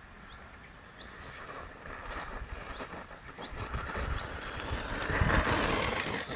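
Traxxas Stampede RC monster truck driving over loose gravel toward the listener, its tyres and motor getting steadily louder and loudest about five seconds in as it passes close.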